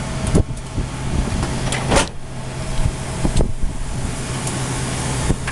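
Cockpit noise of a KC-135 jet tanker taxiing on the ground: a steady low hum over a rushing hiss of engine and air noise, with a few short sharp clicks or knocks about half a second, two seconds and three and a half seconds in.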